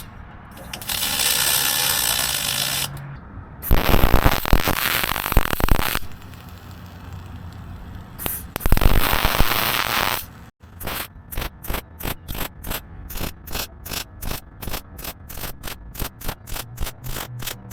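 Lincoln Electric Pro MIG 180 welder's arc crackling and hissing in bursts of a few seconds while MIG-welding aluminum sheet. In the last part this gives way to a rhythmic rubbing, about three strokes a second.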